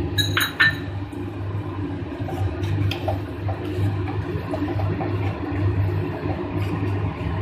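Metal spoon stirring milk and vermicelli in a steel pot: liquid sloshing with faint scrapes, and a ringing clink of spoon against the pot about a third of a second in. A steady low hum runs underneath.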